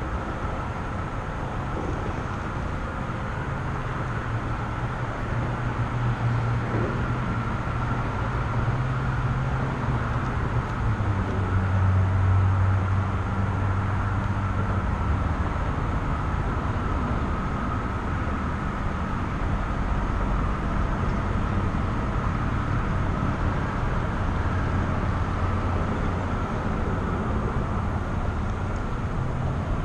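Road traffic crossing the bridge overhead: a steady rumble and tyre hum, swelling briefly about twelve seconds in as a heavier vehicle passes.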